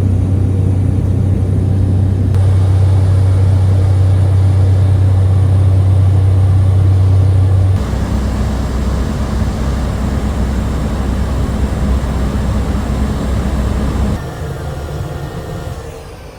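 Steady drone of a small Cessna-type light aircraft's piston engine and propeller, heard from inside the cabin during climb-out. Its low hum shifts abruptly about 8 s and 14 s in, and it grows fainter near the end.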